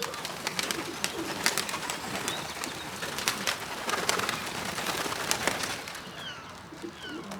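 Young pigeons cooing around the loft, with a scatter of sharp clicks through most of it.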